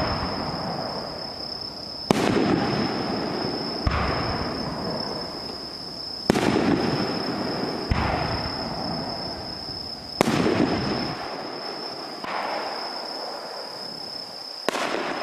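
Aerial fireworks shells going off one at a time: about seven sharp bangs a second or two apart, each trailing off in a long rolling echo. A steady high-pitched whine runs underneath.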